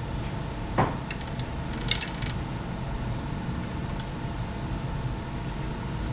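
Light metallic clinks and rattles from a bicycle chain being handled and fitted onto a BMX bike's rear cog, with one sharp knock about a second in and a few faint ticks later on.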